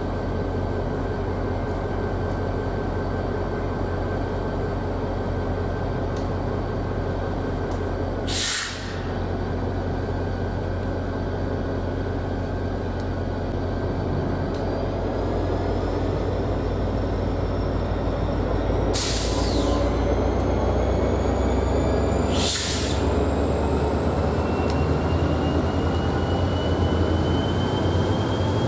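Diesel passenger train at a station, its engine running with a steady low rumble, and four short hisses of air from the air brakes. In the second half a slowly rising whine builds and the sound gets louder as the train starts to move off.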